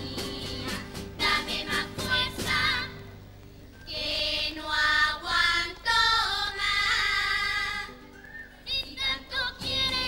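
Girls' voices of a Cádiz-carnival children's comparsa singing together as a choir, accompanied by Spanish guitar. The singing drops away briefly about three seconds in, then returns with long held notes.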